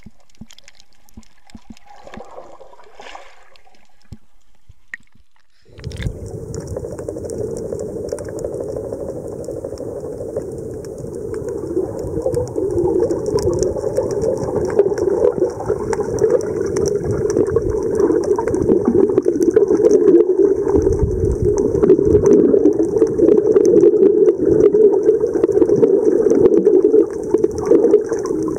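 Underwater sound picked up through a camera's waterproof housing: muffled rushing and gurgling of water around a swimming snorkeler. It is faint for the first few seconds, then becomes suddenly loud about six seconds in and grows louder toward the end.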